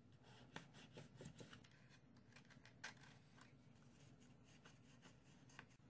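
Near silence, with faint rustling and a few light clicks of cardstock being handled and pressed, the loudest click a little before the three-second mark.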